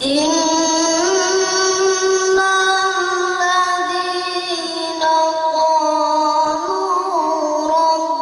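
A boy's voice reciting the Quran in the melodic tilawah style through a microphone and loudspeakers. It begins suddenly with long, high held notes that step slowly up and down, and starts a fresh phrase about five seconds in.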